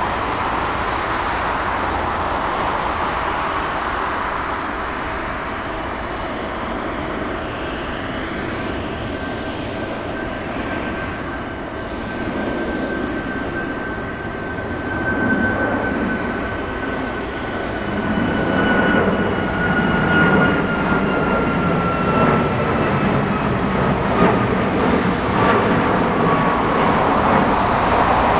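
Airbus A330-300 airliner's Rolls-Royce Trent 700 turbofans at taxi power as it rolls past: a steady rumble under a high whine that slowly falls in pitch, getting louder in the second half.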